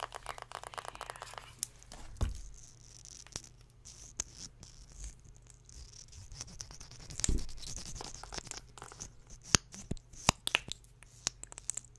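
Close-miked ASMR handling sounds: quick scratching and tapping on objects, a run of sharp clicks and taps with scrapes, and a low thump about two seconds in and another about seven seconds in.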